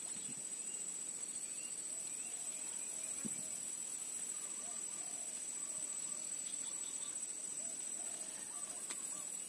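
Outdoor insect chorus: a steady high-pitched drone that runs without a break, with a few faint short chirps over it.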